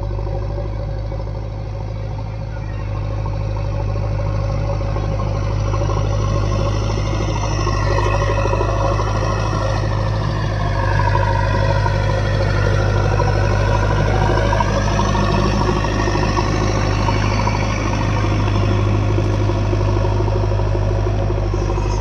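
JCB 3DX backhoe loader's diesel engine running steadily with a deep hum throughout. Around the middle, a higher whine dips in pitch and rises again.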